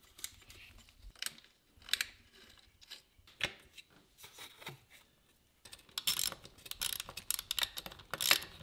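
Ratchet wrench clicking as bolts on a dirt bike's radiator mounts are tightened. A few separate clicks and knocks of handling come first, then a quick, steady run of ratchet clicks starts about two-thirds of the way through.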